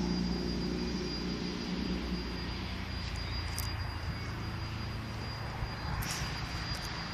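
Regional multiple-unit train rumbling and humming as it rolls slowly toward the platform, with a brief high squeak about six seconds in.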